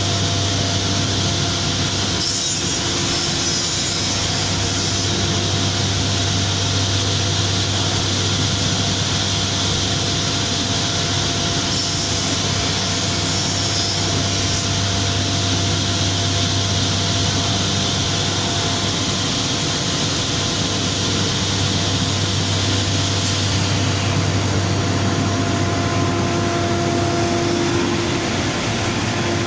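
Biesse Rover C6 CNC machining centre routing a wooden workpiece: steady machine noise of the spindle and cutting, with a low hum and a steady whine. The high hiss of the cut swells briefly about two seconds in and again around twelve seconds in.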